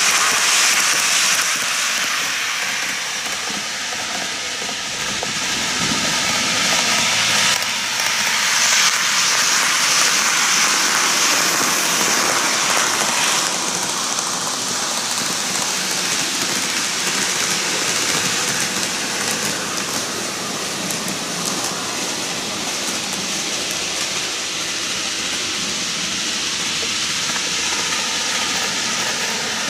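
N-gauge model trains, a Kintetsu 80000 series Hinotori and a 23000 series Ise-Shima Liner, running on TOMIX super-elevated plastic track: a steady, hissing rumble of small wheels on rail and motor drive. It is louder for the first dozen seconds or so, while the red train runs close by.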